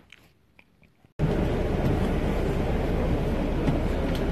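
Near silence with a few faint clicks, then about a second in an abrupt cut to a campus shuttle bus's steady, loud interior rumble of engine and running noise heard inside the cabin.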